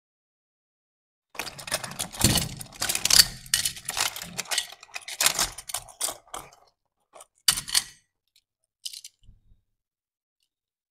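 Small die-cast metal and plastic toy cars and their cardboard boxes being handled in a box, clicking and clattering against each other. The clattering begins about a second and a half in, is busiest for the next five seconds, then thins to a few scattered clicks.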